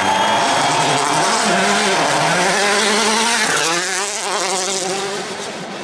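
Citroën DS3 WRC rally car's turbocharged four-cylinder engine revving hard, its pitch repeatedly rising and falling, then fading in the second half as the car pulls away.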